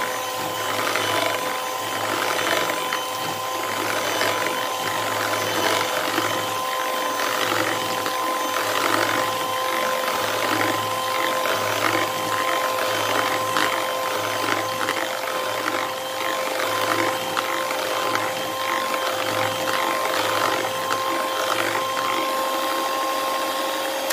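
Electric hand mixer running with a steady whine, its two wire beaters whipping ghee and cold water in a plastic bowl, with a regular churning pulse about once a second.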